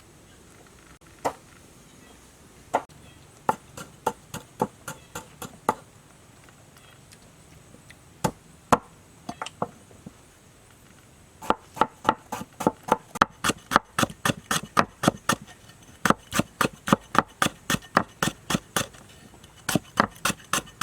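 Knife chopping on a chopping board: a few separate strokes at first, then, about halfway through, a fast steady run of chops at about five a second.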